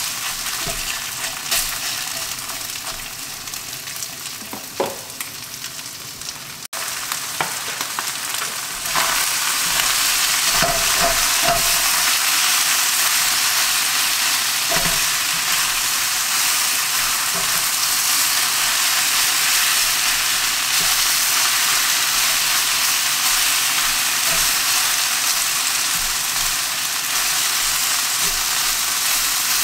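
Thinly sliced marinated Dall sheep meat sizzling and frying in a hot oiled wok, stirred and turned with a silicone spatula. The sizzle gets louder about nine seconds in and then holds steady.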